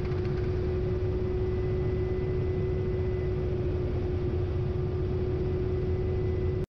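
Kamov Ka-52 attack helicopter in flight, heard from a camera mounted on its airframe: a steady rush of rotor and turbine noise with a constant whine running through it.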